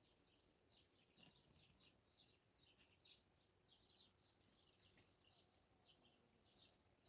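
Very faint birdsong: small birds chirping in quick, repeated short notes.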